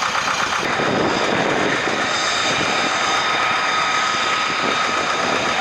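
Aircraft engine running steadily: a continuous rushing noise with a constant high whine on top.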